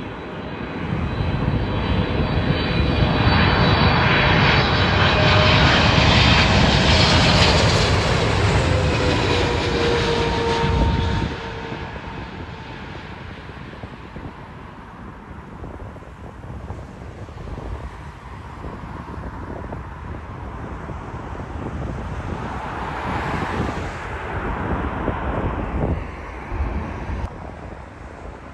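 Jet airliner's engines passing close by: a loud roar builds over the first few seconds, with a whine that falls in pitch as it goes past. About eleven seconds in the roar drops away sharply to a fainter rumble, which swells again near the end.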